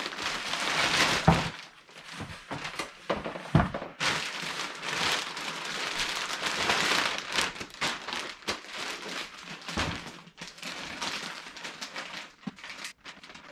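Plastic shipping bag crinkling and rustling as it is torn open and handled, with a few dull thumps.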